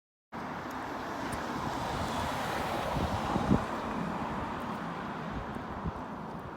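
Steady rush of wind and road noise, with low thumps on the microphone and one louder thump about three and a half seconds in.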